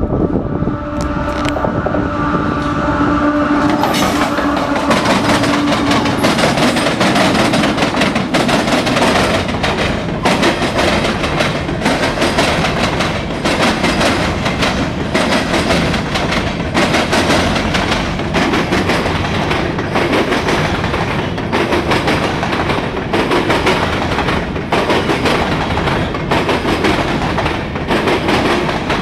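CSX freight train's grain cars rolling past with a loud rumble and repeated clickety-clack of wheels over rail joints. Steady horn-like tones fade out during the first few seconds.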